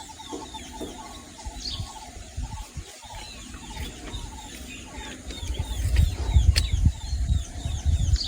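Small forest birds chirping over and over in high, quick notes, several a second. From about halfway through, a low, uneven rumbling buffet grows loud and becomes the loudest sound, with one sharp click in it.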